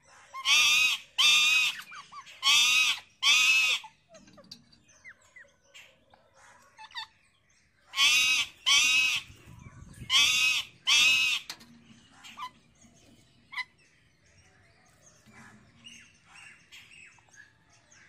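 Rose-ringed parakeets calling: two runs of four loud calls, each about half a second long, the first starting about a second in and the second about eight seconds in, with faint chirps between.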